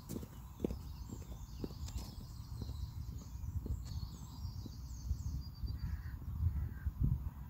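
Footsteps of rubber wellington boots on a dry dirt farm track, about two steps a second, growing fainter as the walker moves away. Birds call and sing over them.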